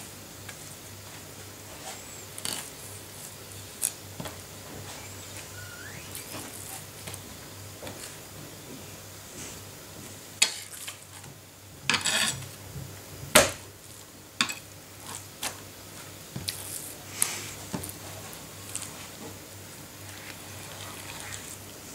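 Filleting knife tapping, scraping and slicing on a plastic cutting board while a witch flounder is filleted: scattered soft clicks and knocks, with a short run of rapid ticks and then the loudest sharp knock a little past the middle.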